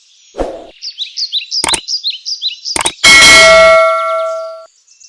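Jungle sound-effect track of bird chirps repeating over and over, with a few short knocks. About three seconds in, a loud bell-like ding rings out and fades over about a second and a half.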